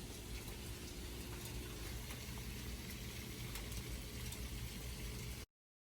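Steady low kitchen background noise with a low hum and a few faint clicks, cutting off abruptly near the end.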